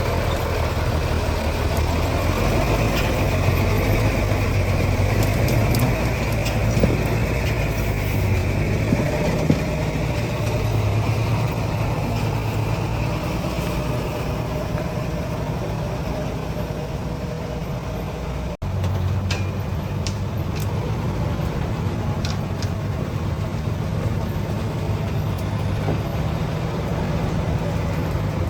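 Heavy diesel engine running steadily at low revs, with a few scattered clicks and knocks. The sound drops out for an instant about two-thirds of the way through, then carries on the same.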